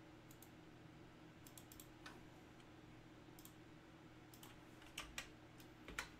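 Faint, scattered clicks of a computer keyboard and mouse, the loudest about five and six seconds in, over a faint low hum.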